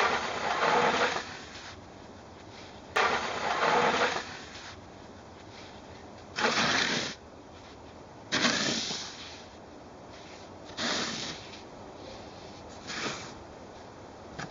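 Snow shovel scraping and scooping snow in six strokes, every two to three seconds. The first strokes last about a second and the last ones are shorter.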